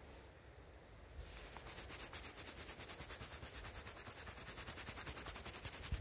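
Brass wire brush scrubbing a dug copper one-kopek coin held in gloved fingers: rapid, even back-and-forth scratching strokes, several a second, starting about a second in. The brushing clears soil off the coin so its date can be read.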